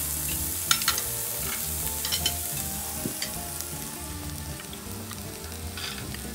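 Meat sizzling steadily on the hot griddle plate of a tabletop electric raclette grill, with a few light clinks of a fork against a china plate.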